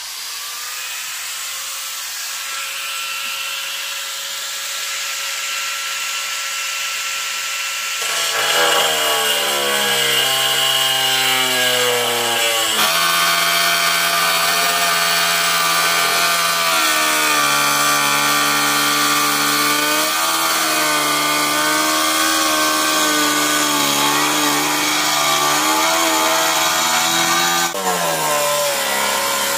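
Electric power saw starting up and running free with a steady whine, then cutting from about eight seconds in, louder and lower, its pitch sagging and recovering under load.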